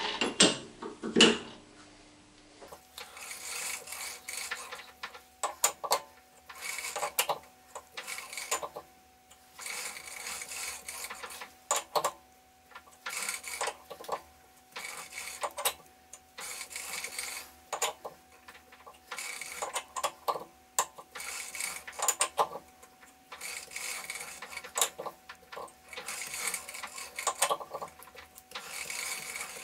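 Four-jaw lathe chuck being adjusted by hand while dialling in a workpiece to run true: repeated short bursts of metallic clicking and scraping from the chuck key on the jaw screws and the chuck being turned, one burst every second or two, over a faint steady hum.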